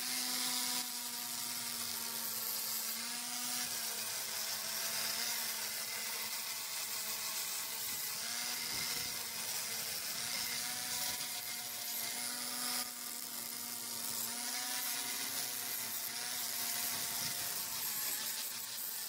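Electric angle grinder running steadily with a flap disc grinding rust off an iron railing, a high whine over gritty hiss, its pitch dipping slightly now and then as the disc bears on the metal.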